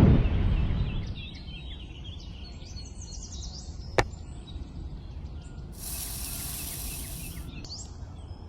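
Outdoor ambience with birds chirping. A low rumble fades away over the first second, a single sharp click comes about four seconds in, and a burst of high hiss lasts about a second and a half near the end.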